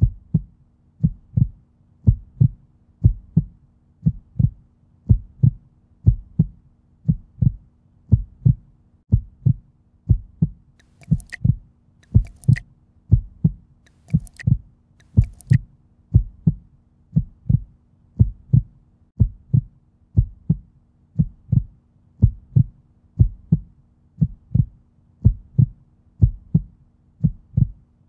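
Heartbeat sound effect: low thuds in an even, steady rhythm over a faint hum. Four short, sharp clicks sound in the middle stretch.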